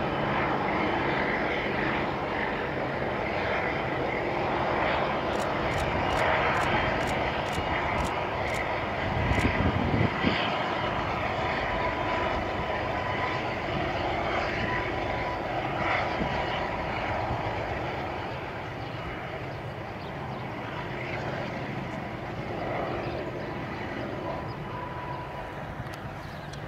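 Distant MLW diesel-electric locomotives with ALCO 251 engines hauling a freight train: a steady low engine drone, with a brief louder low rumble about ten seconds in. The sound drops a little in the second half as the train moves away.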